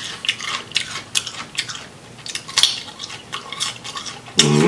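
Crisp, irregular crunches of someone chewing raw Persian cucumber, two or three a second. A voice starts a hum or word just before the end.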